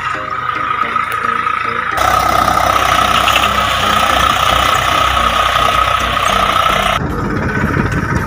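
Tractor engine running steadily as it pulls a seed drill through tilled soil, coming in abruptly about two seconds in over a bar or two of background music, and changing to a lower rumble near the end.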